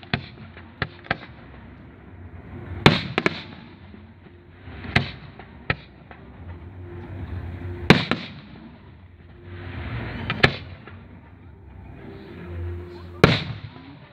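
Aerial firework shells bursting overhead: about a dozen sharp bangs at irregular intervals, some in quick pairs and triplets, over a low background murmur.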